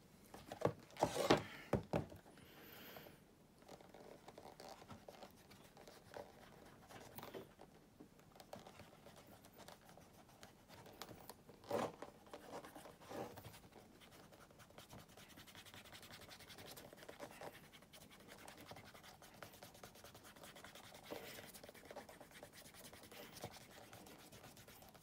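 Bare fingers rubbing beeswax shoe cream into a black leather cap-toe Oxford shoe: a faint, steady scratchy rubbing. A few short knocks sound in the first two seconds and again about twelve seconds in.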